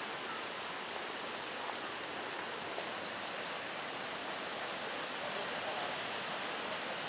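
Steady rushing of flowing water, an even hiss-like noise with no distinct events.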